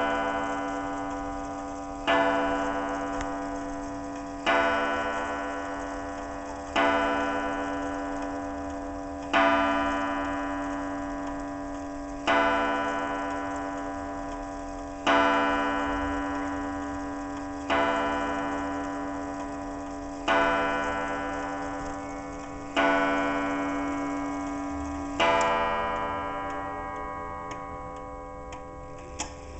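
Junghans keyhole wall clock striking twelve: eleven strikes about two and a half seconds apart, each ringing out and slowly fading, over the pendulum's steady tick-tock. A small click comes near the end.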